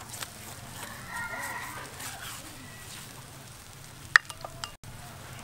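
Faint sizzling of a whole cow roasting on a spit over smoking embers, with a brief distant call about a second in and a few sharp clicks about four seconds in.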